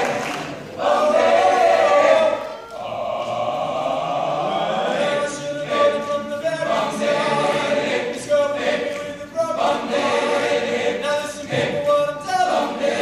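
Men's choir singing in phrases of held chords, broken by short pauses between phrases.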